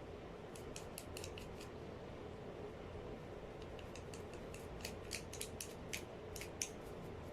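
Light, sharp metallic clicks and snips from small hair-clipper parts and tools being handled. A quick run comes about a second in and a busier one from about four to six and a half seconds in, over a faint steady hum.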